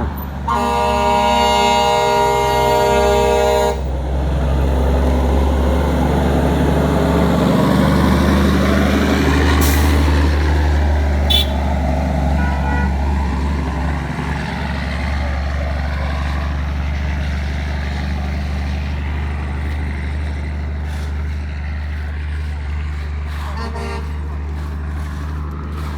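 A vehicle horn sounds one held blast of about three seconds near the start, over the steady low running of a large vehicle engine that continues throughout.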